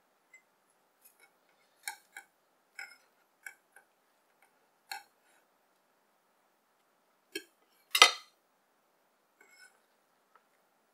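Knife cutting fried kimchi pancake on a wooden chopping board and moving pieces to a ceramic dish: a dozen scattered sharp clicks and knocks, the loudest a single clack about eight seconds in.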